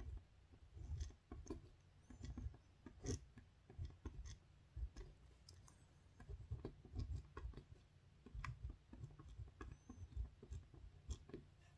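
A pen writing on paper: faint, irregular scratches and taps of the tip as each stroke of the letters is drawn, with soft knocks from the hand on the desk.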